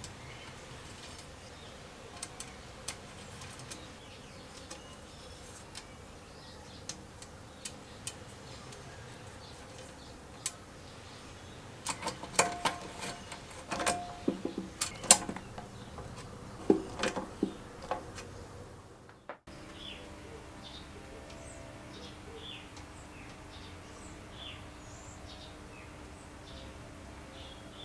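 Scattered light clicks and taps, then a busier run of clicks and knocks, like small parts being handled. After a cut, a steady faint hum with short falling chirps about once a second, like small birds calling.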